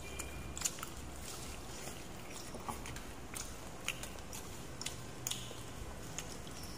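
A person chewing food, with soft mouth clicks at irregular moments and a few slightly louder ones.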